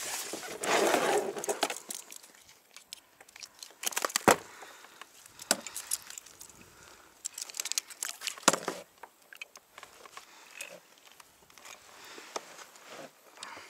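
Handling noise on a plastic kayak: clothing rustling close to the microphone, with scattered clicks and a few sharp knocks, the loudest about four seconds and eight and a half seconds in.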